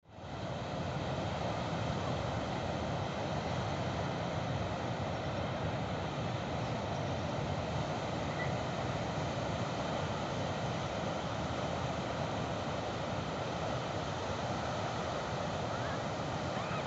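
Steady wash of ocean surf breaking on a sandy beach, coming in abruptly from silence at the start and holding an even level throughout.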